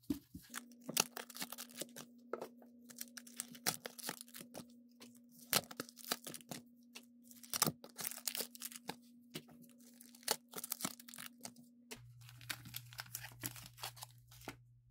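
Pokémon card blister packs being torn open by hand: irregular crackling, tearing and crinkling of the plastic shell, cardboard backing and foil booster wrappers.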